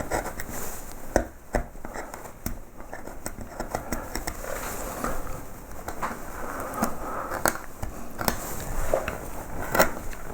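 Small bent skew chisels paring wood out of a low-relief carving: irregular short cuts and light clicks of the blade in the wood.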